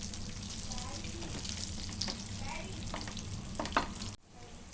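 Fish pieces shallow-frying in hot oil in a pan, a steady sizzle with crackling; the sizzle cuts off suddenly near the end.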